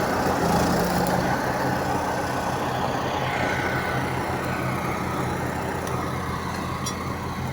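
Engine running steadily, a constant low hum with no change in speed.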